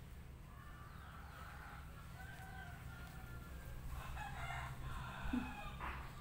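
A rooster crowing twice, each a long drawn-out crow, the second starting about four seconds in, with a small knock a little after five seconds.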